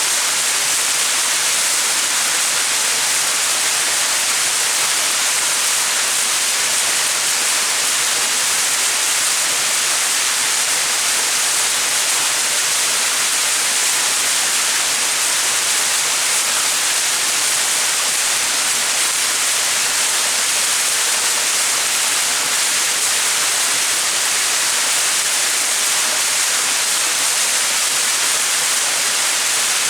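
Small mountain waterfall: water falling and splashing in a steady, even rush that is strongest in the higher tones, with little low rumble.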